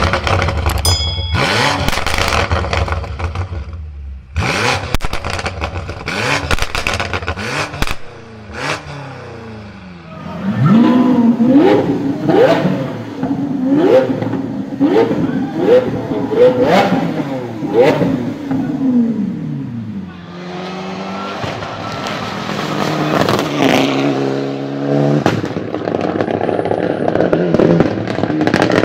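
Performance car exhausts banging and crackling. First come a run of loud sharp pops and backfires, then an engine blipped about seven times in quick succession, crackling as each rev falls away, then another engine revving up near the end.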